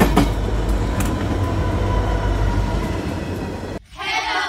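A train running: a steady heavy rumble with a few sharp clacks in the first second. It cuts off suddenly about four seconds in, when music starts.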